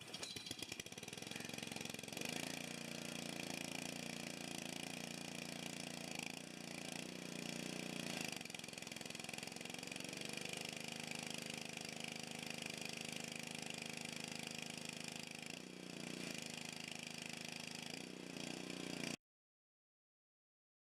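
Gas pressure washer engine running steadily under test, its pitch dipping and recovering a few times as the load changes, then cutting off suddenly near the end.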